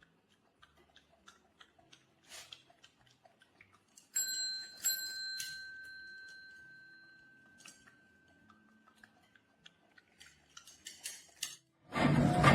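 A desk service bell struck a few times in quick succession about four seconds in, its high ring fading out over several seconds. Faint scattered clicks and taps come before and after it.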